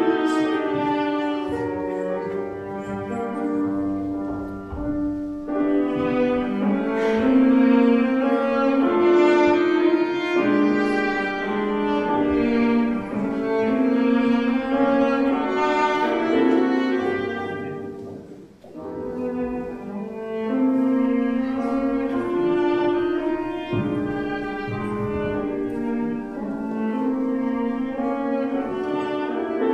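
Chamber ensemble of bowed strings, with cello, and piano playing slow classical church music in sustained phrases, with a brief break between phrases about two-thirds of the way through.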